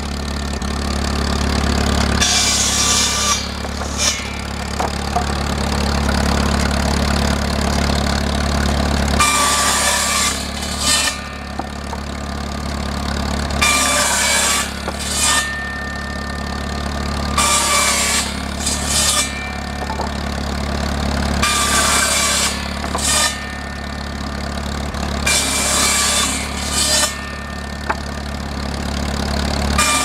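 A belt-driven circular saw cutting cedar boards: about seven cuts, each a second or two of high-pitched ripping whine, over the steady drone of the engine that drives the saw by belt.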